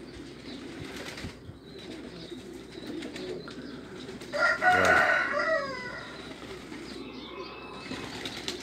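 A flock of pigeons feeding on the ground, with low cooing and wing flaps. About four seconds in, a louder call lasts about a second and a half, falling in pitch at the end.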